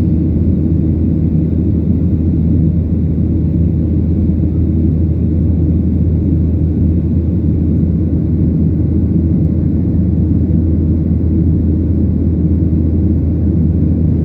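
Passenger plane's engines and airflow during the climb just after takeoff, heard as a steady low rumble inside the cabin.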